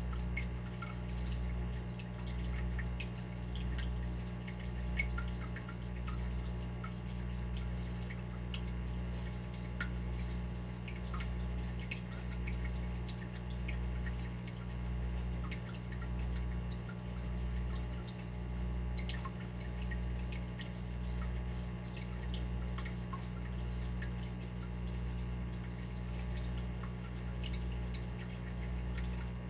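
Water dripping and trickling, many small drops landing unevenly, over a steady low hum that swells and fades about once a second.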